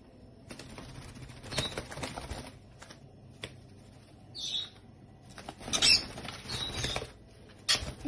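Lovebirds scuffling and flapping their wings on a tiled floor, in two rustling spells with a few sharp taps, and a short high chirp midway.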